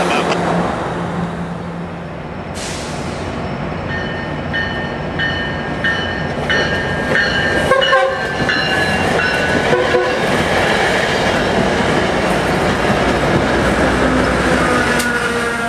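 Passenger trains rolling past at close range, a Metrolink bilevel commuter train among them: a steady rumble and rush of wheels on rail. From about four seconds in there are repeated short high tones.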